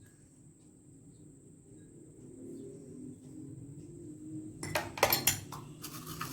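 Kitchenware clattering: a quick cluster of sharp knocks and rattles about four and a half seconds in, and a few more near the end, after a quiet stretch.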